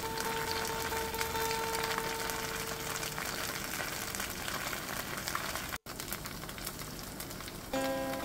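Bánh xèo (Vietnamese crêpe) batter frying in a nonstick pan: a steady sizzle with fine crackling. A held note of background music fades out in the first two seconds, and plucked guitar music starts near the end.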